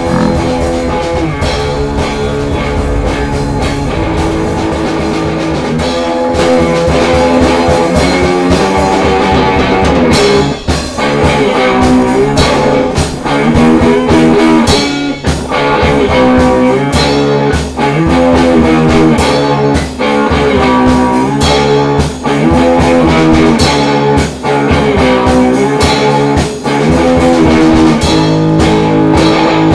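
Rock music with guitar and drums, growing louder about six seconds in.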